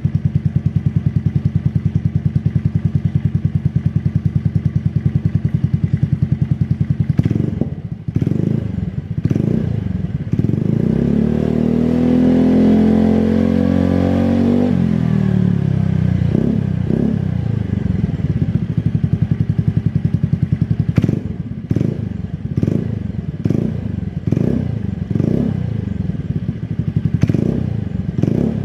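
Honda Vario 110 carburettor scooter's single-cylinder four-stroke engine through an aftermarket Pavta exhaust with a deep, full note: idling steadily, then blipped a few times, held at a rev that rises and falls back about ten seconds in, then blipped again and again in quick short revs.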